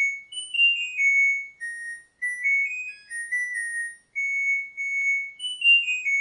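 A washing machine's end-of-cycle tune: a simple melody of pure electronic beeps stepping up and down, with one note held about two thirds of the way through.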